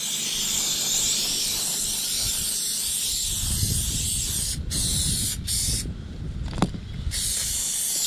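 Aerosol can of spray adhesive hissing as it is sprayed, with short breaks about halfway through and a longer pause near the end before it starts again. A low rumble sits underneath from about three seconds in.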